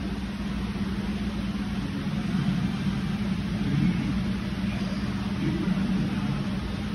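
Steady low hum of background machinery with a faint murmur of distant voices now and then.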